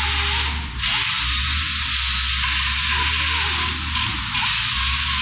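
Water-fed pneumatic chain saw cutting into a block: a loud, steady hiss of the air-driven saw and chain, with a brief dip about half a second in.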